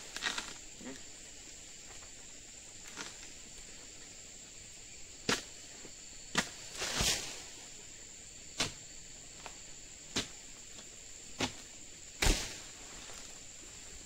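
A pole-mounted harvesting sickle hacking at an oil palm's crown: about ten sharp knocks and cracks at irregular intervals, a longer rough one about halfway through and the loudest near the end. A steady high insect drone runs underneath.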